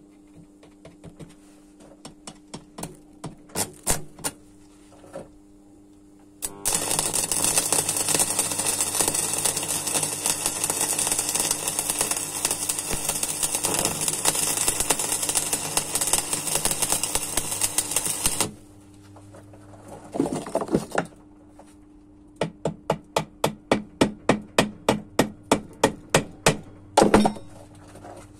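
Stick (shielded metal arc) welding. A few sharp taps come first as the electrode is tapped against the steel. Then the arc strikes and runs for about twelve seconds with a steady loud crackle and sizzle, cutting off suddenly. Later comes a brisk run of sharp metallic taps, about four a second.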